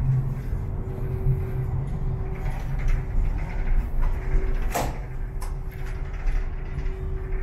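Steady low rumble and hum of a high-speed ferry's machinery heard inside the ship, with a few sharp clicks and rattles, the loudest a little under five seconds in.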